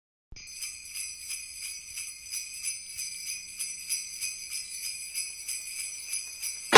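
Jingle bells shaking in a steady, even rhythm, about three shakes a second, starting a moment in.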